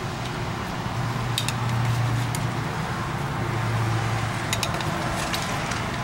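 A metal fork clinking lightly against a cast iron skillet as pineapple rings are laid in: one clink about a second and a half in, a few more past the four-second mark. Under it runs a steady outdoor background with a low hum that swells twice.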